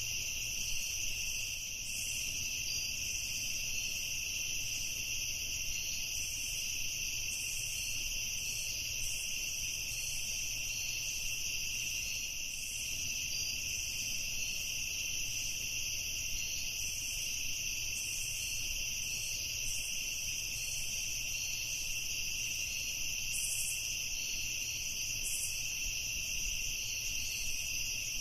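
A steady, unbroken evening chorus of insects, crickets trilling in a high, even drone that does not change.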